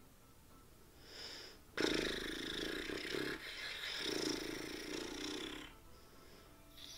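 A person blowing a long, rough breath out through pursed lips, in two drawn-out stretches with a short break between them.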